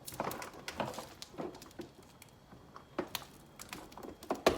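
Irregular plastic clicks and knocks from handling and fitting parts of a truck headlight assembly, with the sharpest knock near the end.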